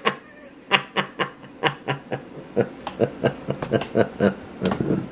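A man laughing: a long run of short chuckles, about three a second, some louder than others.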